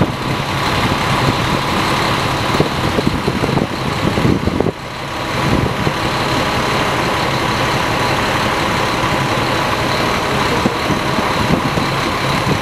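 Tour bus engine running steadily, with a thin steady high tone over it. The level dips briefly about halfway through.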